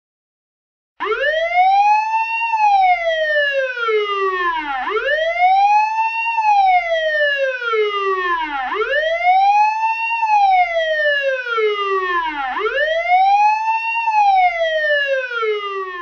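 Federal PA-15A electronic police siren, a reconstruction, sounding its wail: starting about a second in, it sweeps up and down four times, each cycle about four seconds, climbing quickly and falling more slowly.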